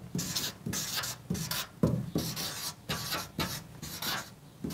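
Marker pen writing on flipchart paper: a quick series of short strokes, two or three a second, as letters are drawn.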